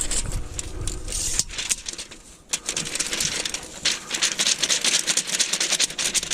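Dense, irregular crackling and rustling of dry leaves and brush being trampled or stirred. It thins out briefly about two seconds in, then comes back thick.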